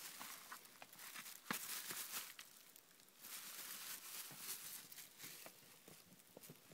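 Faint crinkling and rustling of a plastic bag and shredded paper as a cat bites and paws at them, in two spells with scattered sharp clicks.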